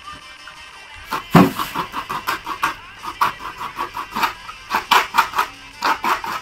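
Coconut being scraped by hand over a steel plate: a run of quick, irregular scraping strokes, about three or four a second, that starts about a second in.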